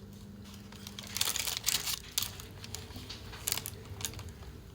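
Food wrapping crinkling and rustling as it is handled, a few short crackles scattered through, over a faint steady hum.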